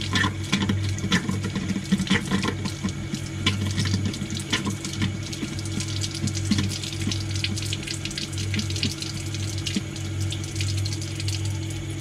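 Bathroom faucet running hot water and sputtering, spitting irregularly as air in the lines blows out with the water and splashes against a hand held in front of the spout. A steady low hum runs underneath.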